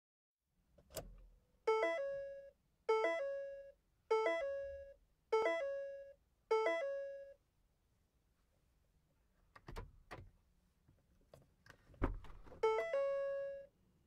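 A car's electronic warning chime sounding five times, about one tone every 1.2 seconds, each tone fading out. A few sharp clicks follow, then one more, longer chime near the end.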